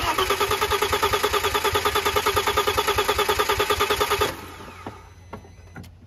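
Audi 2.7 twin-turbo V6 cranking on its starter without firing, an even rhythmic churn of about nine pulses a second for about four seconds, then stopping abruptly. It is being turned over with the fuel pump disabled for a compression test, the tested cylinder building about 172 psi on the gauge.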